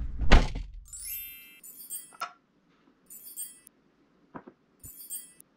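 A thump near the start, then a twinkling chime sound effect that falls in pitch, followed by soft, high, bell-like chime notes repeating about every second and a half, with a couple of faint knocks between them.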